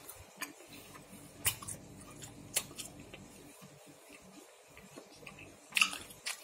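Someone chewing a cireng, a chewy fried tapioca snack: scattered soft mouth clicks and smacks, with a few sharper clicks and a louder cluster near the end, over a faint low hum.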